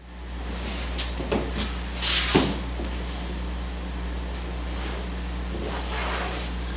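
Wooden stretcher frame handled on a sheet of linen on a tabletop: a few light knocks, a louder brushing swish with a click about two seconds in, and softer rustling of the linen near the end, over a steady low hum.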